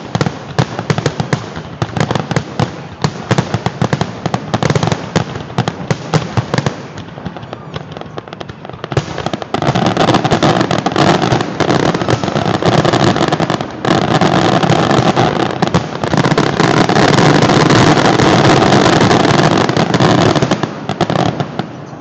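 Fireworks display: aerial shells bursting in rapid succession, thinning out for a moment about seven seconds in. From about ten seconds in the bursts come faster and louder, running together into a near-continuous barrage that eases just before the end.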